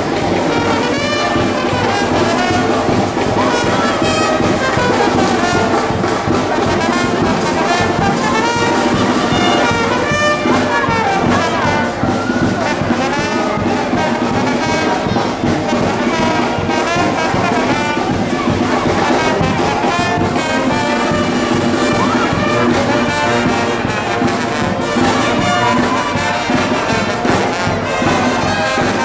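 Brass band music, with trumpets and trombones playing continuously.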